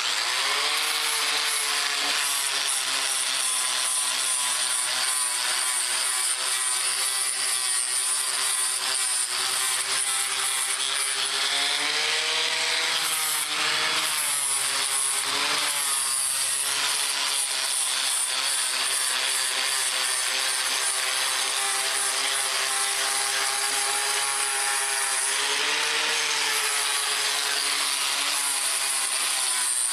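Electric angle grinder with a 120-grit sanding disc running steadily while it sands a round wooden chopping block. The motor's whine sags a little and recovers a few times as the disc bears on the wood.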